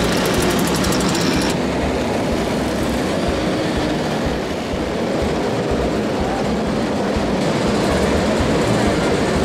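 Many small two-stroke moped engines running at once, making a dense, steady rattling din.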